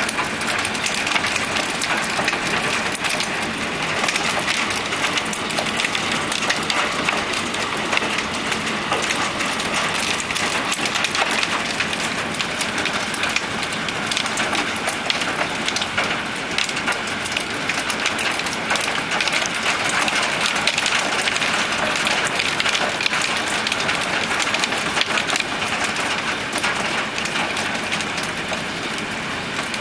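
Small hailstones striking a Japanese clay tile (kawara) roof in a dense, unbroken stream of sharp clicks that ring out on the tiles.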